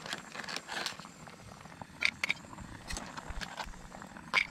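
Light clicks and knocks of cooked crabs and a utensil against a cooking pot as the crabs are lifted out, with a pair of sharper clicks about two seconds in and another near the end.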